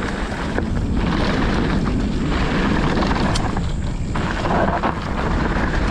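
Wind buffeting a riding camera's microphone as a mountain bike rolls down a dirt trail at speed, a steady deep rumble with tyre noise and a few sharp clicks from the bike.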